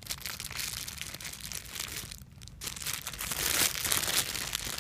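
Plastic packaging bag crinkling and rustling as a squishy toy is pulled out of it, with a short pause a little past two seconds in and louder crinkling after it.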